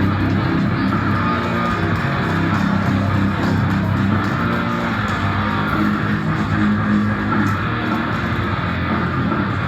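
Loud rock music with electric guitar, steady throughout.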